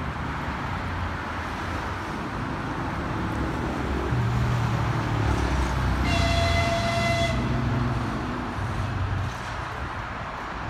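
TEP70 diesel locomotive's horn sounding one steady blast of about a second and a half, a little past the middle, over a steady low rumble of engines that swells and eases.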